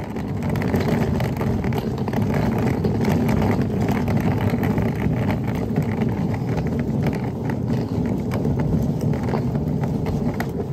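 Rolling suitcase wheels running over a paved street: a steady rumble with many small clicks and knocks.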